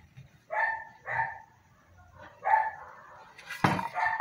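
A dog barking: three short barks, the second following close on the first and the third about a second later. Near the end comes a louder burst of noise.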